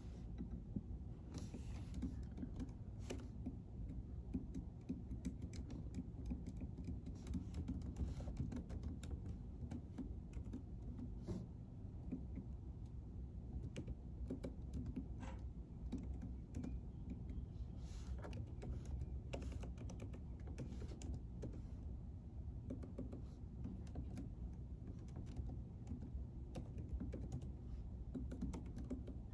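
Typing on a computer keyboard: an irregular patter of key clicks over a steady low hum.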